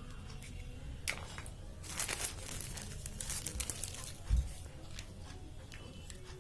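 Packaging crinkling and rustling, with a few light clicks and a soft thump a little past the middle, as toy animal figures are handled.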